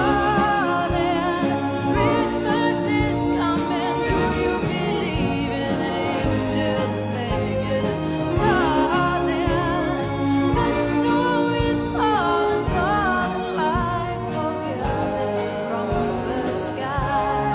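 Orchestra and band playing a slow Christmas ballad, with a sustained melody line that wavers with vibrato over held chords.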